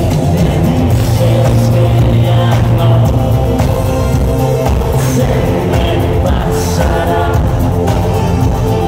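Live synth-pop band playing with a singer, heard loud and bass-heavy from within the audience.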